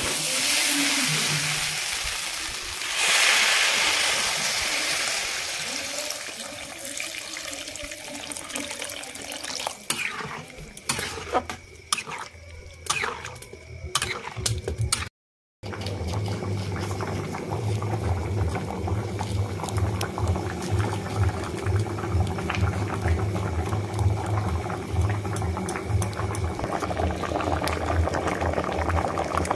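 Water poured from a jug into a kadai of frying daliya, lentils and vegetables, with a loud hiss. Then a spatula knocks and scrapes against the aluminium pan as the mixture is stirred. After a short break the khichuri bubbles steadily at a boil.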